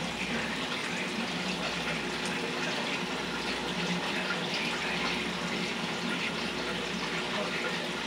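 Aquarium water running and bubbling steadily, the tank's water circulation, with faint ticks and a low hum beneath.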